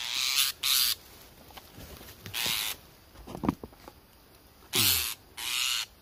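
A string of five short, hissy rustling sounds, each under half a second, while a freshly snared Sunda blue robin is handled and worked free of the trap by hand.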